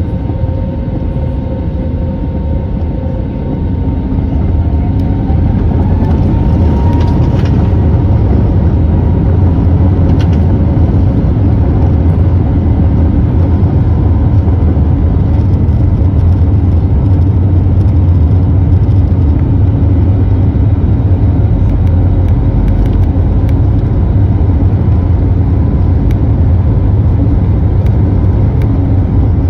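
Airbus A320neo jet engines heard from the cabin, spooling up to takeoff thrust about four seconds in with a rising whine. After that comes the steady, loud rumble and whir of the takeoff roll.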